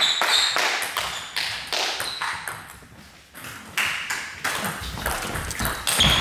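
Table tennis ball clicking off bats and table: a short lull about three seconds in, then a fast rally of quick hits.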